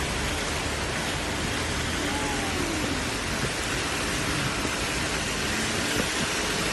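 Torrential rain in a steady hiss, mixed with the rush of floodwater.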